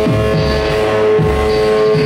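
Live electronic noise music played on cabled electronic gear: a loud drone holding one steady pitch over a rough low rumble that shifts every fraction of a second.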